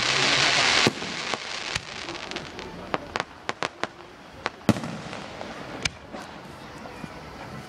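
Aerial fireworks shells going off: a loud hiss for about the first second ends in a bang, followed by a string of sharp bangs and pops, the loudest a little past the middle.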